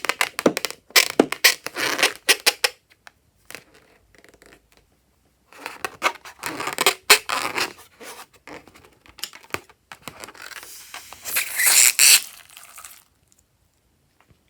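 Slime being worked by hand: irregular bursts of sticky crackling, tearing and squishing, with short pauses.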